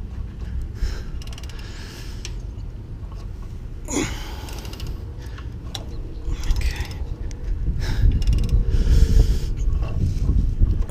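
The crankshaft of a Chrysler 3.5L V6 being turned over by hand with a wrench on the crank bolt, with light mechanical clicks and heavy breaths from the effort of pushing it through its compression strokes, puffs at about four and seven seconds in.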